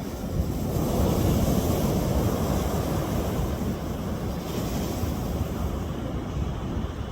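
Ocean surf breaking and washing ashore in a continuous rushing, louder through the first few seconds and then easing a little, with wind rumbling on the microphone.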